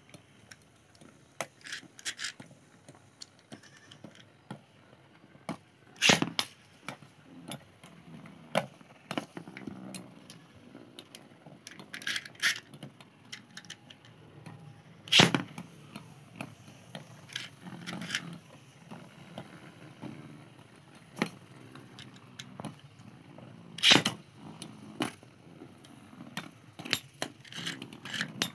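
Metal Beyblade spinning tops spinning on a plastic-covered tray, with scattered sharp clicks and clacks as they knock into each other. The three loudest clacks come about six, fifteen and twenty-four seconds in.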